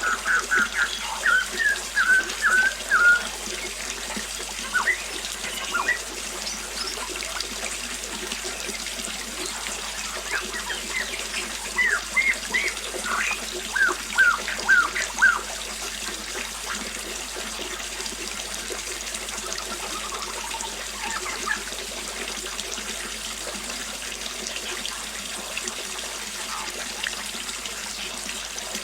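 Small waterfall splashing steadily, with birds chirping over it in two quick runs of short notes, one at the start and one about twelve seconds in, and a few scattered calls between.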